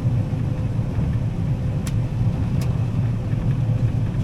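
Combine harvester running steadily while threshing soybeans: a low, even engine and machinery drone with a faint steady whine above it. Two light ticks sound about two seconds in.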